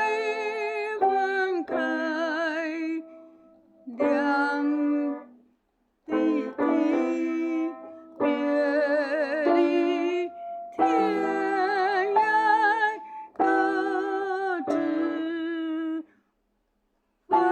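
Singing with a wavering vibrato over an instrumental backing track, in phrases with breaks about five seconds in and near the end.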